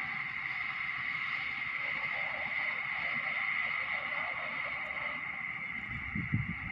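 Passenger train running past at speed: a steady rush of wheels on rails with a sustained high-pitched ring, and a short low thud near the end.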